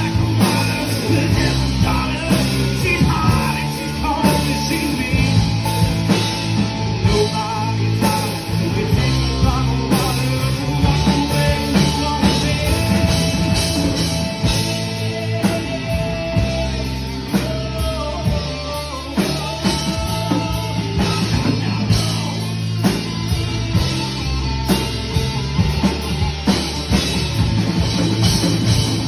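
A rock band playing live: electric guitar, bass guitar, drum kit and keyboard.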